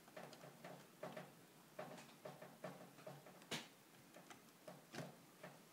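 Faint, irregular small clicks and ticks, about two to three a second with one sharper click about three and a half seconds in, of a small Phillips screwdriver working the screws out of a laptop screen's side bracket mounts.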